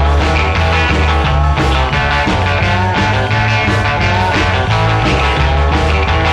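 Rock music with a steady bass line and guitars, psychedelic in style.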